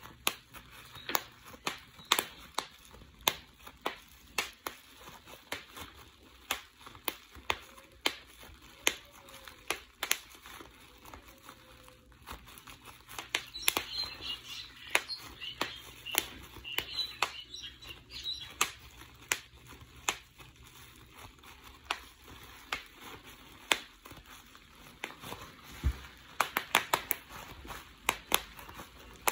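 Plastic bubble wrap being popped bubble by bubble between the fingers: sharp single pops at irregular intervals, now and then in quick clusters, over the crinkling of the plastic sheet.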